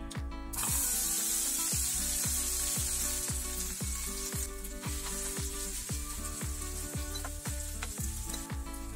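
Chopped onions hitting hot oil with tempering spices in a nonstick frying pan, sizzling loudly from about half a second in and easing off gradually, then stirred with a spatula near the end. Background music with a steady beat underneath.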